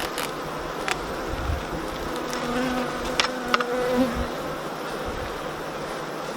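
Honeybees buzzing steadily around an opened hive. A single bee's hum comes close between about two and four seconds in, and there are a few short clicks.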